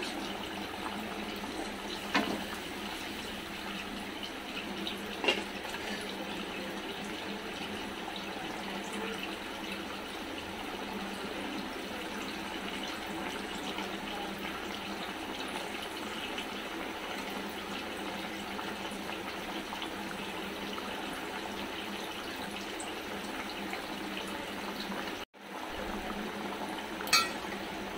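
Potatoes in a thin spiced gravy bubbling steadily in an open pan. Two light clicks come in the first few seconds.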